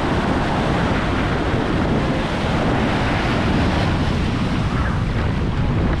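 Small Atlantic surf breaking and washing over sand at the water's edge, a steady wash of noise, with wind rumbling on the microphone.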